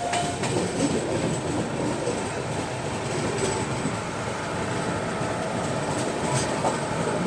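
Passenger train coach rolling along a station platform as the train pulls in: a steady rumble of wheels on the rails, with a few faint clicks. Heard from the coach's open doorway.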